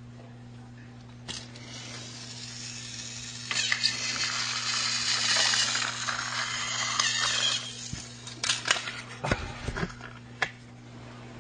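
Hard small objects clattering and rattling for about four seconds, followed by a run of separate knocks and clicks, over a steady low hum.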